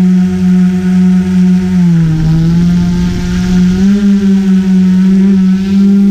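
GoPro Karma quadcopter's electric motors and propellers whining steadily as it hovers. The pitch drops briefly about two seconds in and rises again about two seconds later as the motors change speed.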